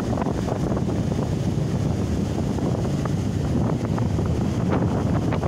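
Strong wind buffeting the microphone in a steady low rumble, over the wash of surf breaking on the beach.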